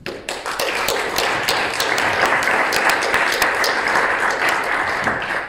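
Audience applauding: a dense patter of many hands clapping that starts suddenly, holds steady, and dies away near the end.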